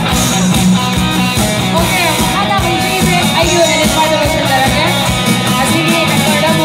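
Live rock band playing loud through a PA, electric guitars and drums over a steady beat, with a woman singing.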